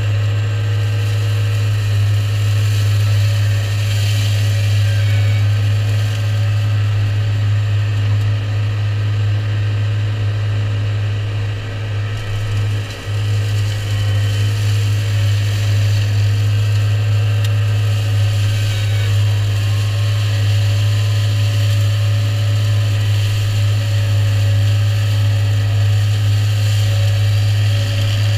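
New Holland tractor running steadily under load, driving a Shelbourne reach-arm flail mower whose head is cutting ditch-bank grass; a steady drone that dips briefly about halfway through.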